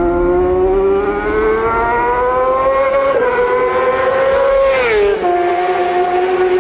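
Vehicle engine accelerating, its pitch climbing steadily with a brief dip about three seconds in, then dropping sharply about five seconds in and settling to a steady lower note.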